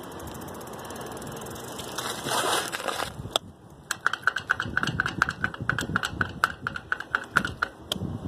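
Accessible pedestrian crossing signal ticking rapidly, about five ticks a second, each with a short beep-like tone; the ticking starts about four seconds in and stops near the end. Before it comes a brief rush of wind noise.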